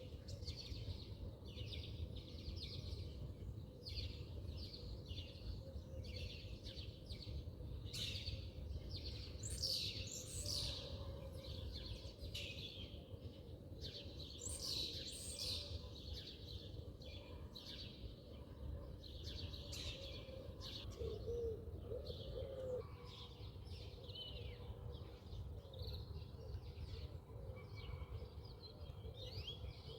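Small birds chirping and twittering over and over, over a steady low background hum.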